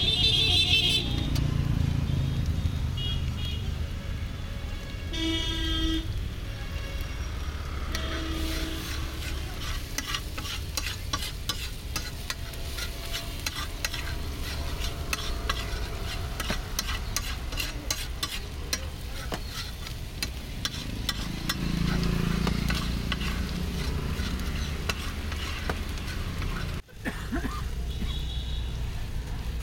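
A metal spatula stirs, chops and scrapes chopped green chillies and spices frying in oil on a flat iron tawa. The rapid tapping of the blade on the pan is thickest in the middle stretch, over a steady sizzle, with traffic rumble behind.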